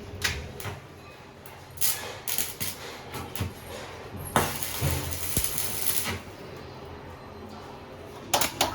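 Metal knocks and clinks from parts being handled on an iron gate, with a harsh hiss lasting about a second and a half near the middle.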